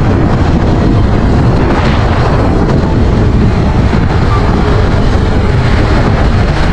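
Motor scooter on the move, its engine running steadily under heavy wind rush on the microphone.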